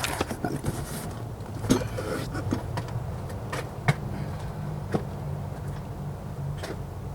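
Scattered light clicks and taps from hands working a throttle cable and its clips in a truck's engine bay, over a steady low hum.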